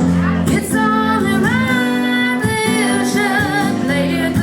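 A woman singing held, wavering notes over acoustic guitar accompaniment.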